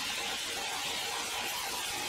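Horizontal band sawmill blade running through a large log: a steady hiss-like cutting noise with a faint steady tone beneath it.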